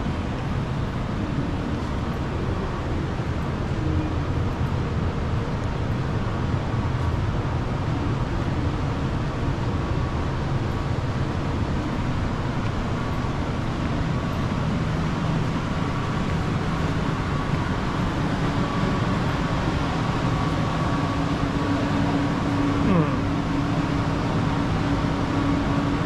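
Steady city-street background noise with a low rumble. A steady low hum joins near the end.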